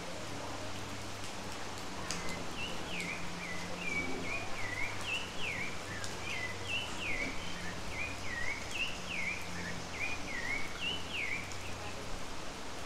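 Steady rain falling, with a bird calling a long series of short chirps, each a quick falling note, about two a second, starting about two seconds in and stopping near the end.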